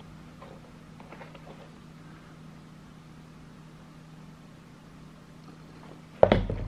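Leather trainers handled and turned in the hands, with faint rustles over a steady low hum, then a sudden loud thump near the end.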